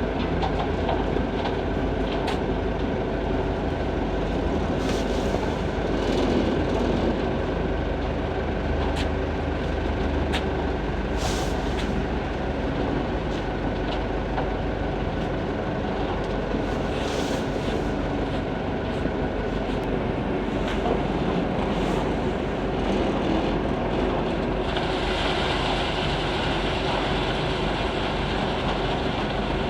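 Heavy diesel machinery, an excavator and a dump truck, running steadily under load, with scattered metallic clanks. A higher hiss joins in near the end.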